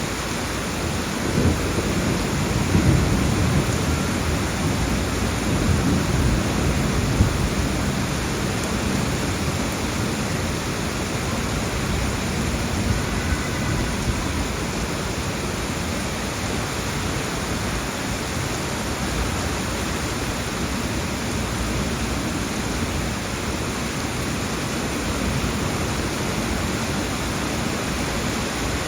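Steady monsoon rain falling, with a low rumble of thunder in the first several seconds that then fades back into the rain.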